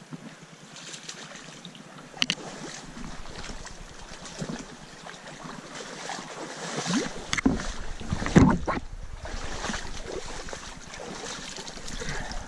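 Mountain stream water running, with rustling and knocks from the angler's movements close to a chest-mounted GoPro. A sharp click comes about two seconds in, and a loud bump about eight seconds in.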